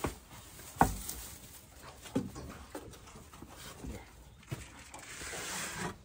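Scattered knocks and clunks of a feed bucket against wooden pen boards, the loudest a little under a second in, then a rustling hiss near the end.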